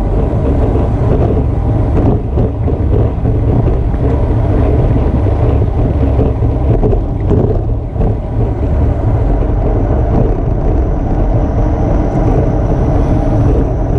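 Wind rushing over the microphone of a camera on a road bike racing downhill at about 30 mph: a loud, steady, deep rush.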